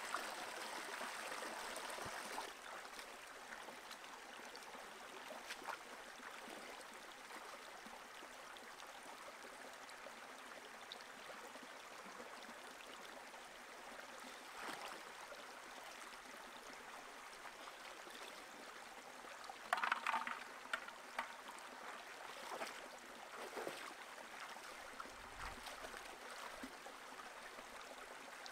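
Shallow rocky river running steadily, with light splashes of someone wading through it. A short burst of louder splashing comes about two-thirds of the way through.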